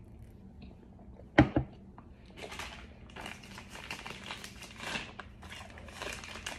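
Two sharp taps close together about a second and a half in, then plastic packaging crinkling and rustling as it is handled and scraped for the last of the powder.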